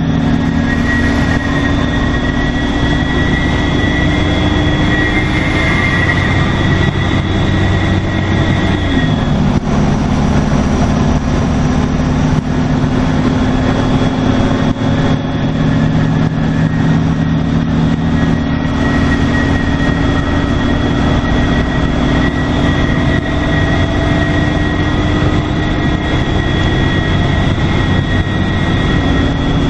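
Detroit Diesel Series 50 engine of a 2002 NABI 40LFW transit bus running under way, with a steady high turbo whistle over the engine hum. The engine note drops about nine seconds in, the whistle fades, and both come back up later.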